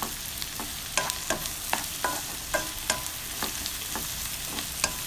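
Sliced onions and shallots sizzling in hot oil in a nonstick wok while a wooden spatula stirs them, scraping and knocking against the pan about twice a second over a steady hiss.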